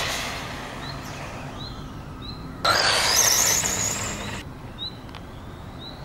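Small electric RC on-road car (LRP Shark 18) running away after a high-speed pass, its sound fading. Nearly two seconds in, a louder stretch of the car driving across paving stones starts and cuts off abruptly. A bird chirps repeatedly, about once every second.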